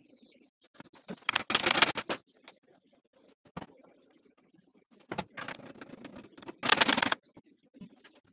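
Two spells of rough scraping made of quick strokes against wood, the first about a second long and the second about two seconds.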